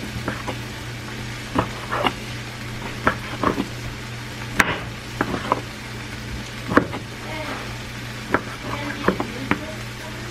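Chef's knife slicing cooked steak on a wooden cutting board: about a dozen irregular knocks of the blade against the board, the loudest about halfway through. Underneath, a steady sizzle of meat frying in a pan and a low steady hum.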